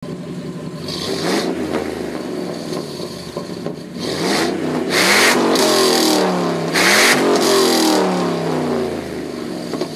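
A car engine revving several times, its pitch climbing and falling, loudest in the second half.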